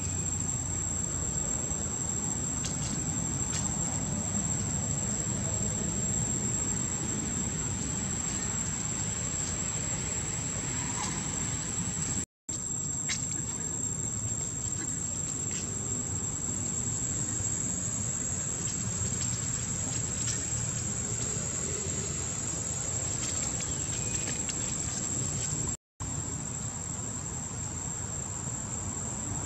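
Steady high-pitched insect chorus, shrilling without a break, over a low rumble. The sound cuts out completely for a moment twice, about twelve seconds in and near the end.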